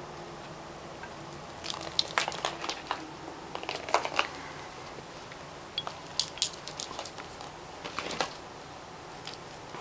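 Champagne cork batted by a kitten, tapping and clattering across a wooden floor in two quick flurries of light clicks, with some rustling as the kitten scrambles along a curtain.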